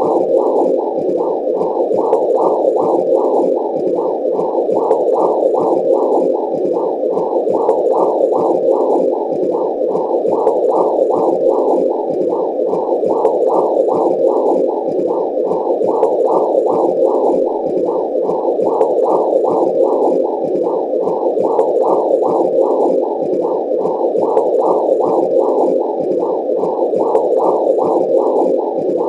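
Womb sound for soothing a baby: a muffled whooshing noise that pulses evenly about twice a second.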